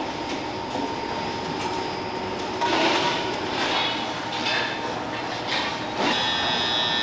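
Steady drone of factory machinery with a faint constant tone, broken by louder bursts of noise about three seconds in and again near the end.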